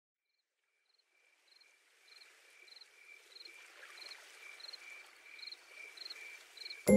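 Insects chirping in a steady rhythm, about one short pulsed chirp every two-thirds of a second over a faint hiss, fading in from silence over the first two seconds. Music starts suddenly and loudly right at the end.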